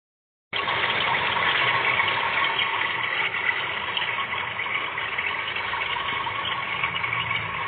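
Steady bubbling hiss of gas escaping into water through a pinhole in a pitted aluminium refrigerator evaporator tube: the sign of a leak in the line. It starts about half a second in and cuts off abruptly at the end.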